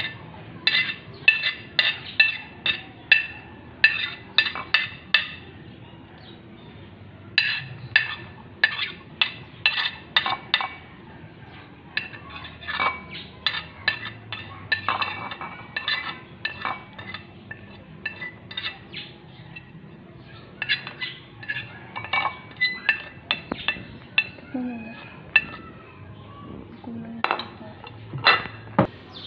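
Metal spoon tapping and scraping on a porcelain plate and ceramic bowl, in quick runs of ringing clinks, several a second, with short pauses between runs.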